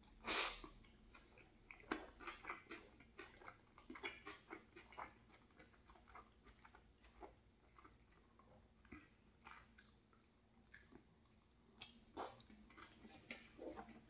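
A person biting into and chewing a tuna flatbread: soft wet mouth sounds and small crunches, with a louder bite right at the start and another about two seconds in.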